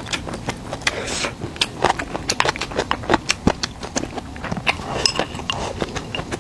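A person eating cured pork belly: irregular chewing and wet mouth clicks, several a second.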